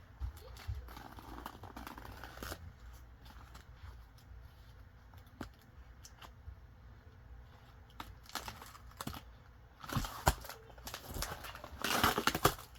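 Packing tape being torn off a heavily taped parcel, with the packaging crinkling as it is handled. The loudest tearing comes in two runs near the end.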